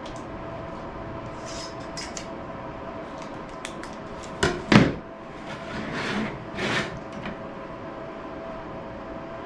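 Two sharp metal clunks about four and a half seconds in, then two softer scraping swells, from a sheet-metal brake being worked to bend aluminum stiffeners. A steady hum runs underneath.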